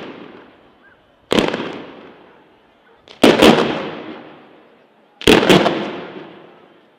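Ground firework chain (batteria alla bolognese) going off in loud bangs about every two seconds: one single bang, then two doubled ones, each followed by a long echoing fade.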